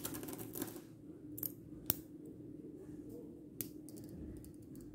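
Small magnet balls clicking together as a strand is snapped onto a ring of balls: scattered light clicks, with two sharper ones about two seconds and three and a half seconds in, over a faint steady hum.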